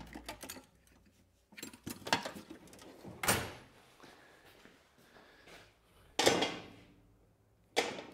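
Hand tools being handled and set down: a series of separate clunks and rattles with quiet gaps between, the loudest about six seconds in and again near the end.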